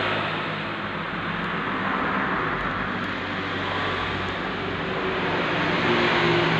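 A motor engine running steadily under a broad hiss, its hum shifting and rising slightly near the end. It is not the dismantled scooter engine in view.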